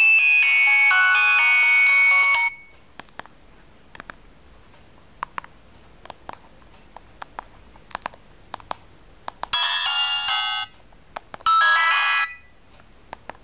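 Vertex D528 mobile phone playing a polyphonic ringtone melody through its small speaker, which stops abruptly about two and a half seconds in. A scattering of soft clicks follows, then two short ringtone snippets of about a second each near the end.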